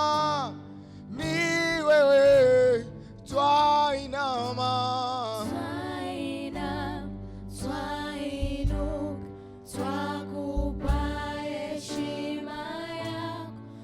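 Gospel worship song: voices singing a sustained, melismatic line over held instrumental chords and a low bass.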